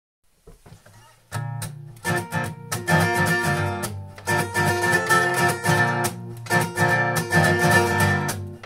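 Acoustic guitar being strummed: a few faint plucked notes, then from about a second in a steady rhythm of full chord strums.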